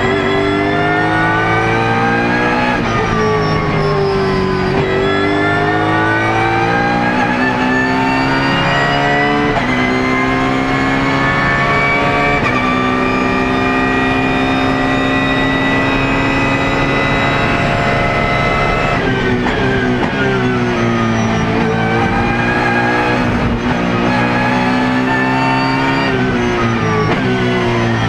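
BMW Z4 GT3 racing car's V8 engine heard from inside the cockpit, accelerating at full throttle with quick upshifts: the pitch climbs and drops sharply at each gear change, with one long climb in the middle. About two-thirds of the way in it steps down through the gears, then climbs through the gears again.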